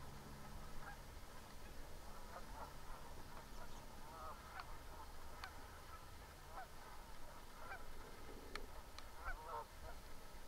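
Distant flock of feeding geese honking: many short, overlapping calls scattered throughout, with a low rumble underneath.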